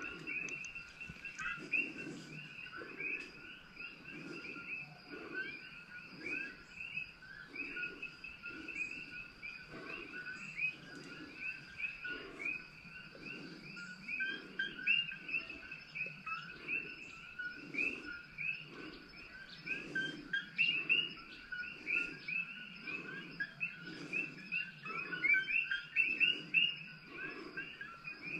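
Dense chorus of short, high, rising chirps from birds and frogs, with a soft low pulse repeating a little more than once a second underneath.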